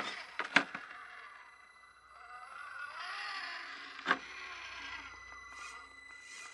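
Electric motor and geared drivetrain of an FMS FCX24 K5 Blazer 1/24-scale RC crawler whining as it crawls over rocks, the pitch rising and falling with the throttle. Sharp knocks of the truck against the rock come near the start as it drops nose-down, and once more about four seconds in.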